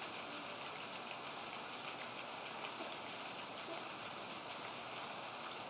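Lawn sprinkler running: a steady hiss of falling water with faint scattered drip ticks.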